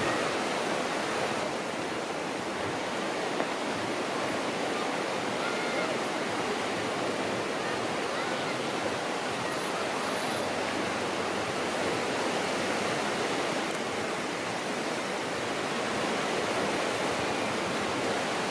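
Sea water rushing in a steady, even wash with no distinct wave breaks.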